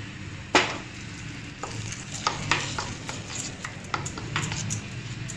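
A spoon stirring mustard-seed tempering into coconut-mint chutney in a stainless steel bowl, with irregular light clinks and scrapes of the spoon against the steel. A single sharp knock comes about half a second in.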